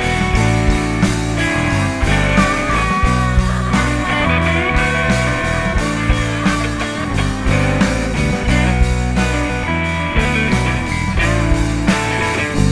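Instrumental passage of a rock song: full band with guitar, bass and drums keeping a steady beat, with a held, wavering melody line coming in about two seconds in.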